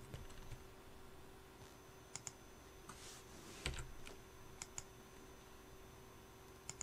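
Faint computer keyboard keystrokes and mouse clicks: a few scattered single clicks, the loudest a little under four seconds in, over a faint steady hum.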